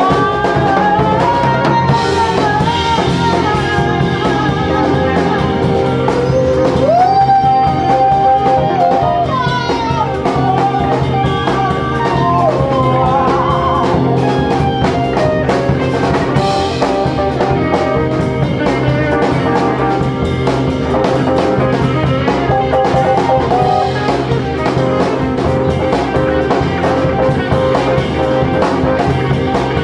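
Live band playing a song with drum kit and guitar, a lead melody sliding between pitches and holding long notes over the steady accompaniment.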